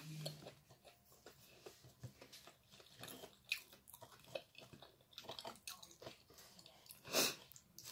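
A person chewing and biting fried sugar-coated tindok banana close to the microphone: soft, wet chewing with many small smacks and clicks. A louder short noise comes about seven seconds in.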